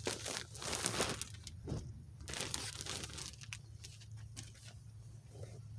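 Thin plastic mailer bag crinkling and rustling as clothing is pulled out of it, in irregular bursts that are busiest over the first couple of seconds and then thin out.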